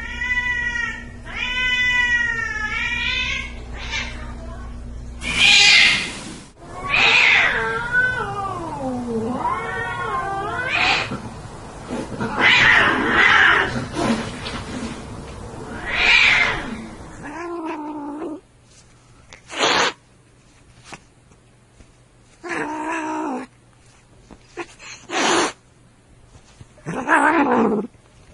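Cats fighting: long, wavering, rising and falling yowls and harsh screeches. After about 18 seconds these give way to shorter separate cries and hisses with pauses between them.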